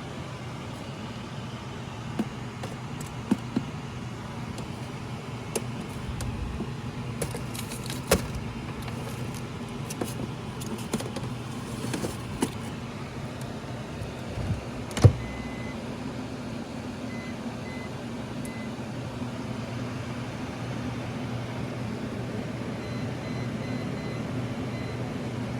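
Steady low hum of a vehicle interior with scattered clicks and knocks, one much louder knock about halfway through. Short repeated electronic beeps come twice in the second half.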